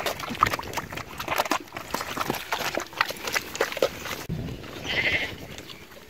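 A farm animal bleats once, a short quavering call, about five seconds in. Before it comes a run of small irregular clicks and knocks.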